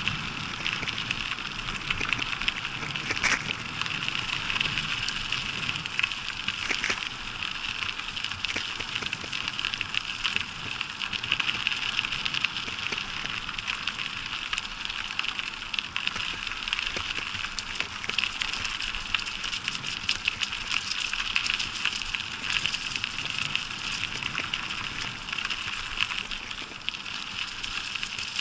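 Bicycle tyres rolling over a gravel path and then a carpet of dry fallen leaves: a steady crackling hiss with many small scattered clicks.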